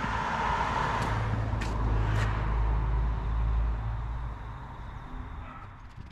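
A car passing along the street, its road noise and low rumble swelling and then fading away about four seconds in.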